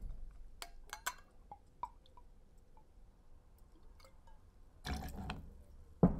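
Blue curaçao poured from a bottle into a stainless steel jigger: a few light clicks of bottle against jigger, then faint trickling liquid. A loud sharp knock near the end as the metal jigger is set down on the table.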